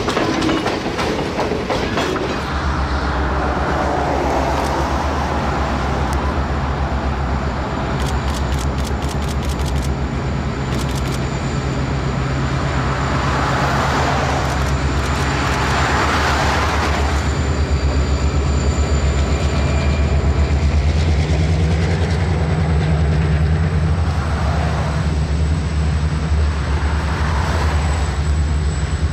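Passenger car wheels clacking over the rail joints for the first couple of seconds, then a diesel-electric locomotive's engine running with a steady low drone as it leads a passenger train by, with a run of sharp clicks about eight seconds in.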